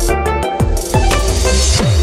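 Electronic background music with a steady kick-drum beat.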